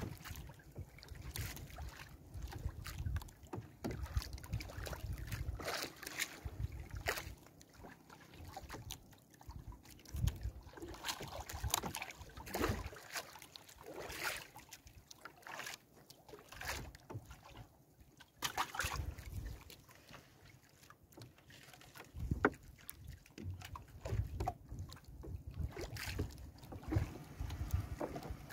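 Nylon gill net being hauled by hand into a small outrigger boat and fish picked from it: irregular rustles and knocks. Wind rumbles on the microphone at times.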